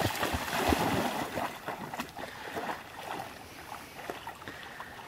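A dog splashing as it runs into shallow lake water, loudest in the first two seconds, then fainter water sounds as it swims out.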